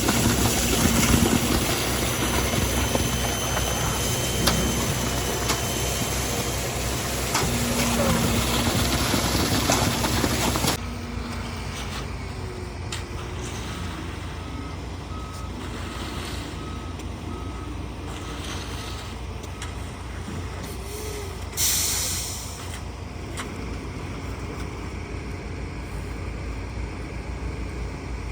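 Heavy truck running loudly at first, then dropping off suddenly about a third of the way in. A reversing beeper then pulses steadily for several seconds, followed by a short hiss of air brakes.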